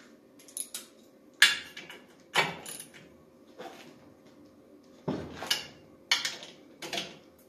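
Hand ratchet tightening the screws on a vintage Ski-Doo Rotax engine: separate metallic clicks and clanks of the ratchet and tool, about one a second, with short pauses between them.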